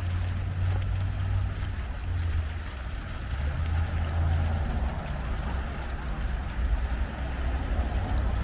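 Outdoor street noise: a steady low rumble with an even hiss above it.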